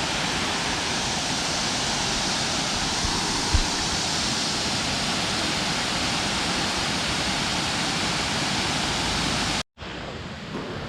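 Waterfall heard from an overlook: a steady, even rush of falling water. It cuts off abruptly near the end and gives way to quieter outdoor noise.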